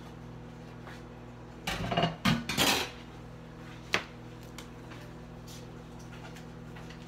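Dishes and kitchen utensils clattering on a countertop in a short burst about two seconds in, followed by a single sharp knock about a second later, over a steady low hum.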